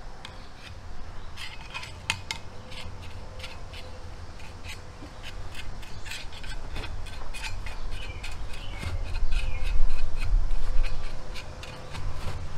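Homemade cylindrical steel hole-digging tube twisted and worked down into sandy soil: gritty scraping and clicking of sand and grit against the metal. Underneath runs a low rumble that swells about ten seconds in.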